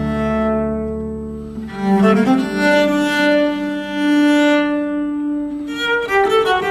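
Background string music: bowed strings with a low cello line playing long held notes, moving to a new chord about two seconds in and to shorter, quicker notes near the end.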